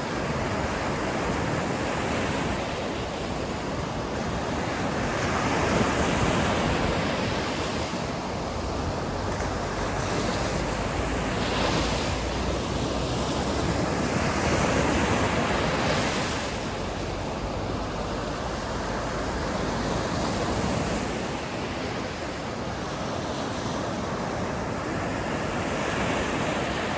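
Sea waves breaking and washing on the shore in a steady surge that swells and eases every few seconds, with some wind.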